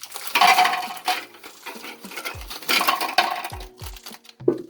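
Dry biscuits clattering into a hard container as they are tipped out of their packet, in two pours.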